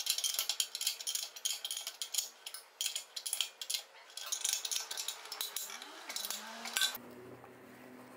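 Rapid, irregular metallic clinking and rattling of small metal parts being handled, which stops abruptly about seven seconds in, leaving a faint low hum.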